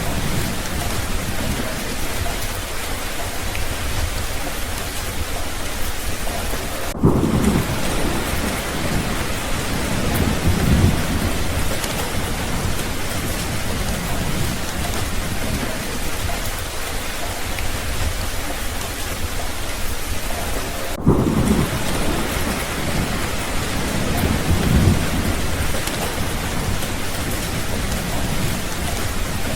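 Steady heavy rain, with low thunder rumbling twice, about a quarter and two-thirds of the way through, each rumble lasting a few seconds.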